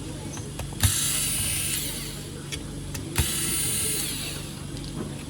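A small power tool, such as an electric screwdriver or drill, run twice for about a second and a half each, each run starting with a click.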